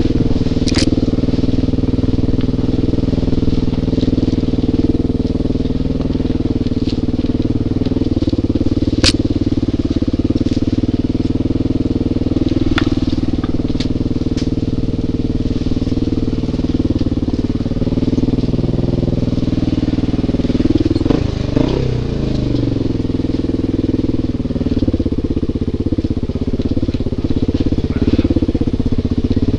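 Dirt bike engine running steadily while riding down a rough wooded trail, the engine note dropping briefly about two-thirds of the way through and then picking up again, with scattered sharp clicks and knocks from the rough ground.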